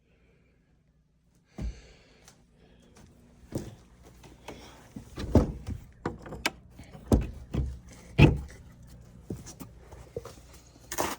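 Irregular heavy footsteps and knocking thumps, with a wooden door being handled, starting after a second or so of quiet.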